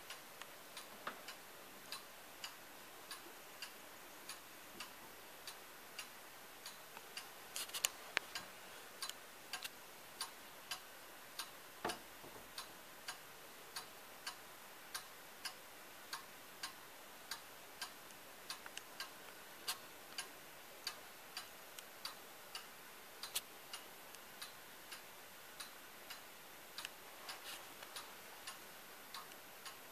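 ODO 36 carillon wall clock ticking steadily as its pendulum swings, about one and a half ticks a second. A cluster of louder clicks around eight seconds in and a knock around twelve seconds in come as the wooden case door is opened. The clock does not chime here.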